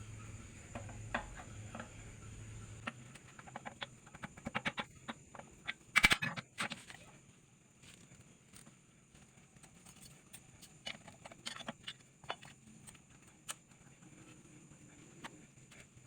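Scattered metallic clicks and knocks of tools and metal parts being handled, with one louder clank about six seconds in. A low hum underneath stops about three seconds in.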